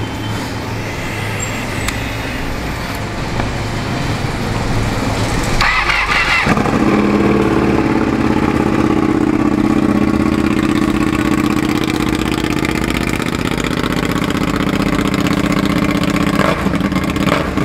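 Ducati Panigale's L-twin engine, its exhaust removed, cranked on the starter about six seconds in, then catching and settling into a loud, steady idle without being revved.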